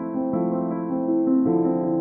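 Background music led by a piano-like keyboard melody, the notes moving at an easy, even pace.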